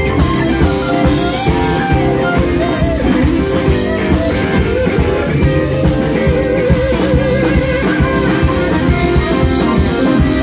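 Live blues band playing: several Telecaster-style electric guitars over a drum kit, a wavering held note standing out about six seconds in.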